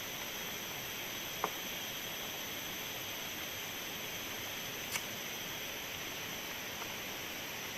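Steady outdoor background hiss with a faint high, even drone. Two brief soft clicks, one about a second and a half in and one about five seconds in.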